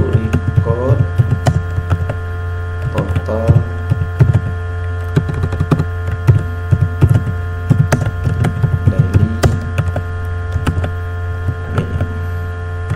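Computer keyboard keys clicking in bursts of typing over a loud, steady electrical hum.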